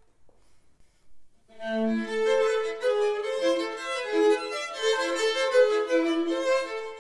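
A violin and a viola playing a duet together, bowed; the two instruments enter together about a second and a half in, after a short near-silent pause, and carry on in interweaving melodic lines.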